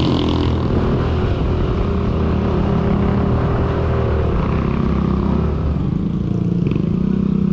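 A vehicle engine running steadily under load, a low continuous drone.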